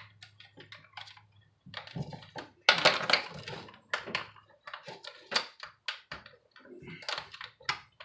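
Hand tools working on a chainsaw's plastic fuel tank and housing: irregular light clicks and knocks, with a louder rattle of handling about three seconds in. A faint low hum stops about halfway through.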